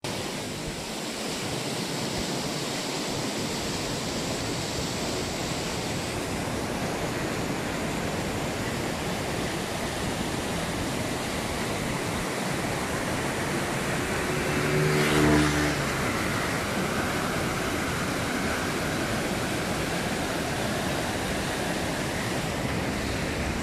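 Steady rushing of a flooded river pouring through barrage gates, a constant even roar of water. About fifteen seconds in, a brief low pitched hum swells and fades over it, the loudest moment.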